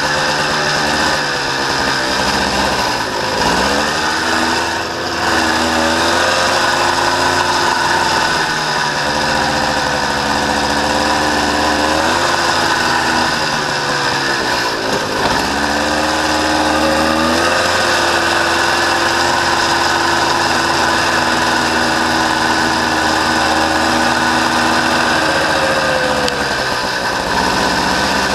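Honda Odyssey FL350R's single-cylinder four-stroke engine running under way, heard from on board; the revs drop sharply twice, about three and fifteen seconds in, then climb back and hold steady.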